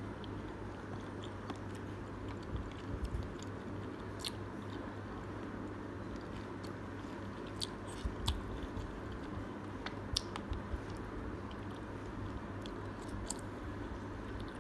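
Close-up chewing of soft udon noodles, mouth closed, with scattered wet mouth clicks over a steady low hum; the sharpest clicks come about eight and ten seconds in.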